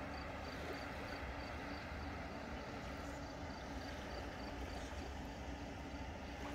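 Steady outdoor background noise: a low rumble under an even hiss, with a faint steady hum and a faint high pip repeating about twice a second.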